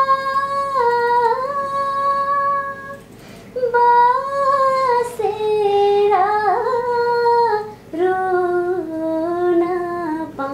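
A woman singing solo without accompaniment, holding long notes with sliding, wavering ornaments. There are two short breaks for breath, and the melody settles lower near the end.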